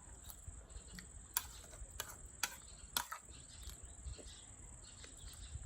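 Quiet eating noises: a handful of sharp clicks, about one every half second between one and three seconds in, over a faint steady high-pitched whine.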